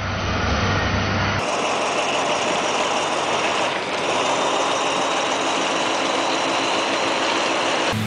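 Heavy machinery running with a dense, steady mechanical noise; the sound changes abruptly about a second and a half in.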